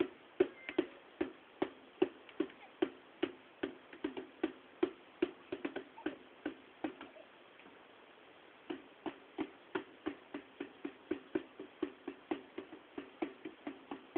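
Steady rhythmic percussion beating out a dance rhythm, about three sharp beats a second, each with a short low ring. The beating stops for about a second and a half midway, then picks up again.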